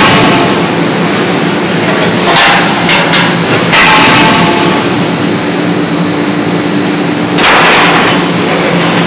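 80 kJ CNC die-forging hammer striking a hot workpiece: heavy blows at the start, a quick cluster between about two and a half and four seconds in, and another at about seven and a half seconds, each followed by a rush of noise. Under them runs a steady machine hum with a thin high whine.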